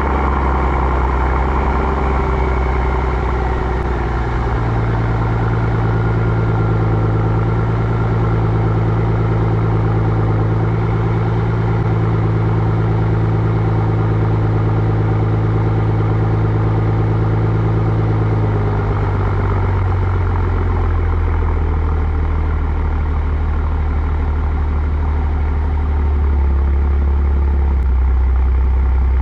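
Mercedes-Benz S65 AMG's twin-turbo V12 idling through its stock exhaust just after a cold start. The note is steady and even at a raised cold-start idle, then drops in pitch about two-thirds of the way in as the idle comes down.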